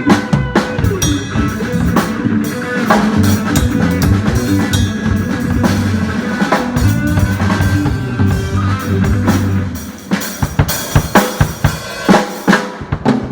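Live band playing with the drum kit to the fore: bass drum, snare and cymbals over held bass and other pitched notes. About ten seconds in the held notes fall back and the drums play a run of loud separate hits, like a fill heading to an ending.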